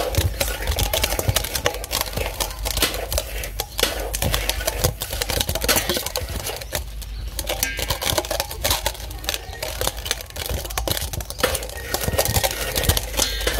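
Metal spoon scraping and clinking against a metal bowl while mixing cooked rice and fish: a dense, irregular run of quick clicks and scrapes.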